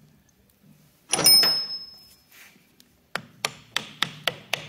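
A single metal clank with a ringing tail about a second in, then light hammer taps, about three a second, seating a cast-iron part onto its dowel pins on a lathe apron.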